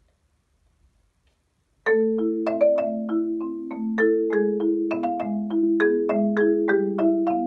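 Near silence, then about two seconds in two players start at once on one Adams marimba: quick mallet strokes on the wooden bars, with lower notes ringing on under a faster upper line.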